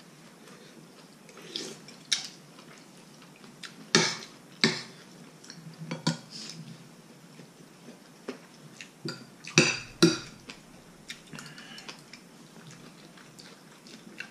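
Metal spoons clinking against ceramic plates and bowls while people eat: scattered short clinks, loudest in two quick pairs about four seconds in and about ten seconds in.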